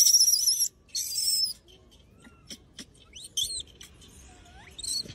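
A young rhesus macaque screaming: two bursts of very high, wavering squeals in the first second and a half, then a few short, quieter chirp-like calls.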